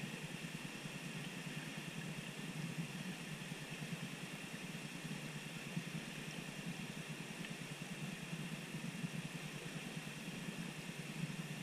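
Steady muffled underwater rumble with a faint hiss, picked up through a waterproof camera housing while the diver swims.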